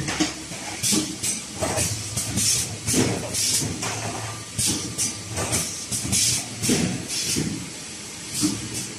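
Automatic wire ring coiling and butt-welding machine running through its cycle, with a quick, irregular series of short air hisses over a steady mechanical background.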